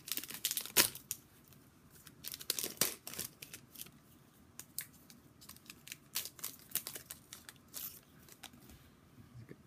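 Upper Deck hockey trading cards being flicked through by hand, the card stock giving short sharp clicks and brushes as each card slides off the stack, in quick clusters and then more slowly.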